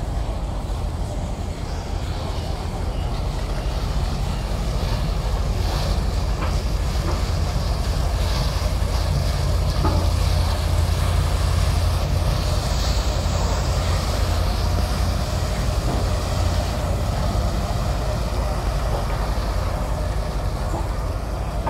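Engine of a wooden harbour ferry running as the boat cruises close past, a steady low rumble that swells as it nears, loudest about halfway through.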